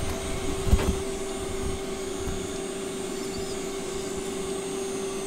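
Steady mechanical hum with a rushing, airy noise under it, one even tone held throughout, and a soft knock just under a second in.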